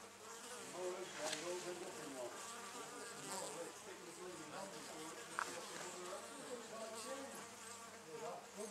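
Honey bees buzzing at the entrance of their nest in a wooden box: many overlapping wingbeat buzzes that waver up and down in pitch, with a single short tick about halfway through.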